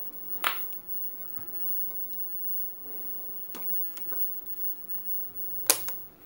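Sharp clicks from handling a digital multimeter and turning its rotary range selector: a loud click about half a second in, a few light clicks midway, and the loudest click near the end, over a faint steady hum.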